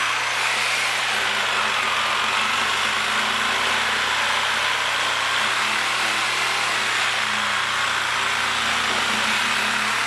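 Power saw with a carbide blade running steadily as it cuts through the steel-reinforced bead of a Michelin PAX run-flat tire.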